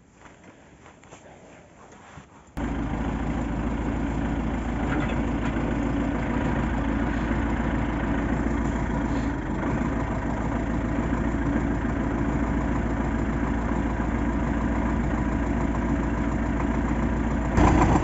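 Belarus MTZ-82 tractor's four-cylinder diesel idling steadily, cutting in abruptly about two and a half seconds in after a quiet start.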